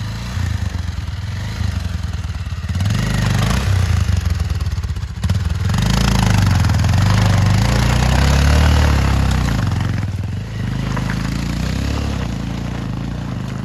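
Motorcycle engine running and revving up and down as the bike picks its way slowly over a broken, muddy track. A broad noisy hiss lies over it, louder from about six seconds in.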